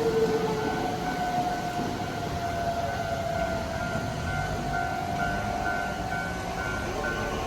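Japanese railroad crossing's electronic warning bell ringing "kan-kan" in a steady repeated rhythm, about two strokes a second, over the rumble of a train running through, with a tone that slides slowly down in pitch.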